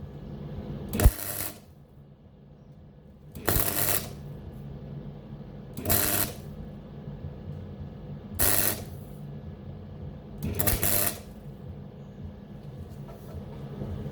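MIG welder arc crackling in five short bursts, each about half a second long and about two and a half seconds apart, as a plug weld is built up in a hole in steel sheet. A steady low hum from the welder runs between the bursts.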